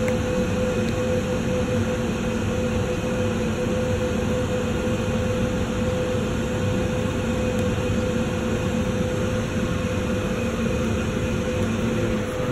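Steady mechanical hum of running machinery with a constant mid-pitched tone; the lower part of the hum drops away just before the end.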